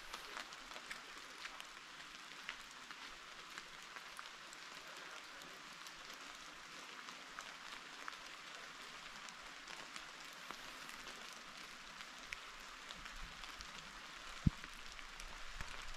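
Steady patter of rain, a soft hiss dotted with many small drop ticks. A single short knock comes near the end.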